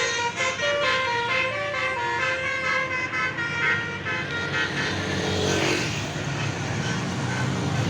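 Bus telolet horn, a set of multi-tone air horns, playing a quick tune of short stepped notes over the bus engine running. About five and a half seconds in, a hiss rises and a tone falls in pitch, and the sound cuts off just before the end.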